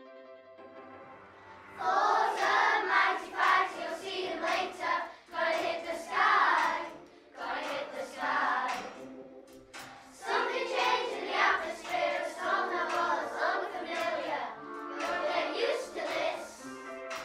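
A group of children singing a song together to a strummed acoustic guitar, which plays alone for the first couple of seconds before the voices come in.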